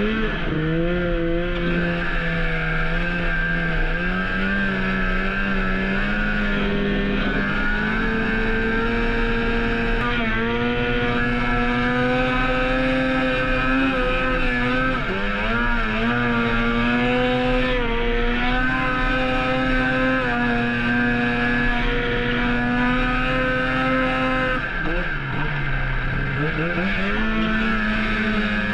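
Snowmobile engine running hard at high revs, pulling another sled on tow. Its pitch climbs right at the start, holds high with small rises and falls, then dips about 25 seconds in and climbs back up.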